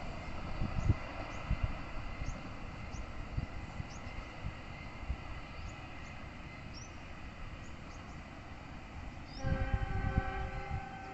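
Locomotive horn of an approaching train, sounding once for about a second and a half near the end as a steady multi-note chord.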